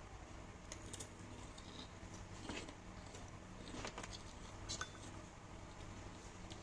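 Spoons and cutlery clinking lightly on plates and bowls during a meal: several faint, separate clinks a second or so apart, over a low steady hum.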